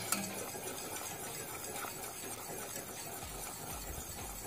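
Sugar syrup simmering in a steel saucepan with a low, even hiss, stirred with a wire whisk. The whisk gives a light clink against the pot right at the start.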